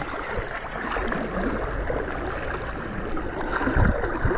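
Shallow river water sloshing and splashing around people wading and swimming, a steady watery noise with a low rumble underneath.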